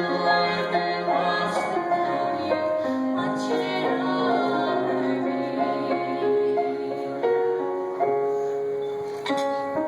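A song with keyboard accompaniment: a woman's singing voice is heard in the first second or two, then the keyboard carries on with held notes and chords.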